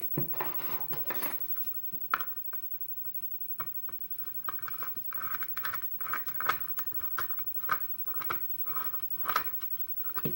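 Small metal clicks and scrapes of a tool working the rear cap off a Schlage lock cylinder, in irregular handling sounds.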